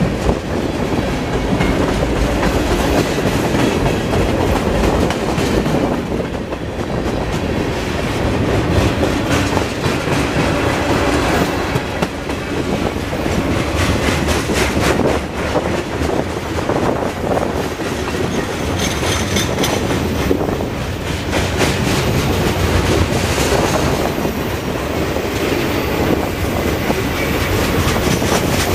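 Freight cars of a CSX mixed freight train rolling past close by: a steady rumble with a rapid clickety-clack of steel wheels on the rails.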